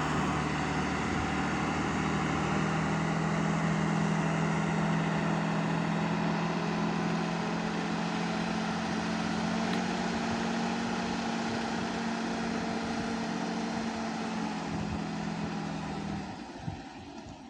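Heavy diesel machinery engine running steadily with a low drone, which drops away near the end.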